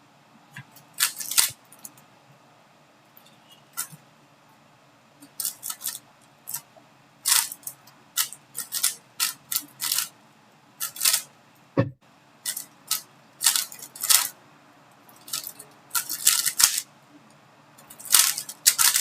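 A 3x3 speedcube being turned fast during a timed solve: quick runs of plastic clicking and clacking turns with brief pauses between them.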